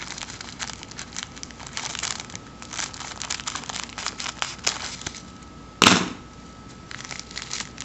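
A small plastic bag of white seed beads crinkling, with the beads clicking against each other as fingers squeeze and roll the bag. About six seconds in there is one loud, sharp snap.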